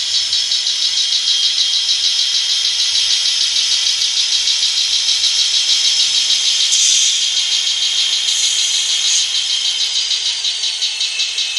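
Diesel locomotive sound from a sound-equipped N scale EMD SD40T-2 decoder, played through its tiny speaker: a tinny, steady engine beat pulsing several times a second, with a high squeal and brief hisses about seven and nine seconds in.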